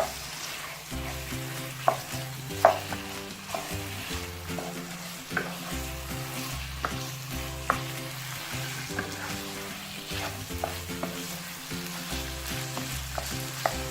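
Chicken pieces frying and sizzling in the masala while being stirred, with a utensil knocking and scraping against the pan now and then.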